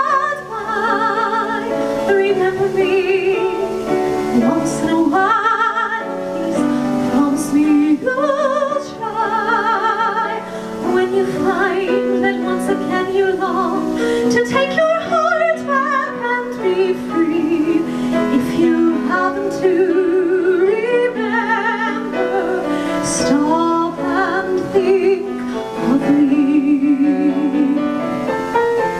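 A soprano singing a slow musical-theatre ballad in an operatic style, with wide vibrato on long held notes, accompanied by a grand piano.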